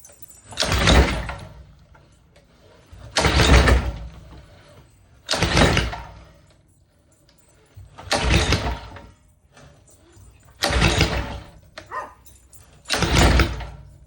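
Small gas engine on an Ex-Cell XR2500-1 pressure washer being cranked by its recoil pull-starter, six hard pulls about every two and a half seconds, each a second-long rasp of cranking that dies away without the engine catching. The starter is super hard to pull, and the owner traces the failure to fire to a cracked valve rocker arm.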